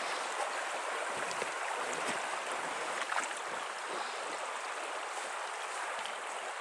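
Shallow mountain river rushing steadily over a stony bed, with a few faint knocks.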